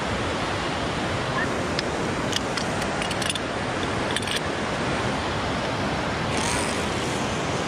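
Steady rushing of whitewater rapids in a concrete whitewater channel, with a few light clicks between about two and four and a half seconds in.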